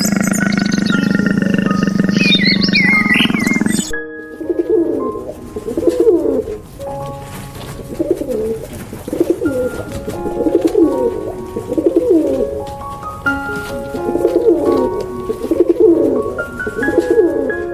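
Background music throughout. For the first four seconds high bird chirps sound over a loud low hum; then, after an abrupt change, a series of low animal calls repeats roughly once a second.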